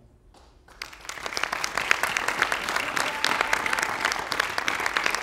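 Audience applauding. It starts about a second in and quickly builds to steady, dense clapping.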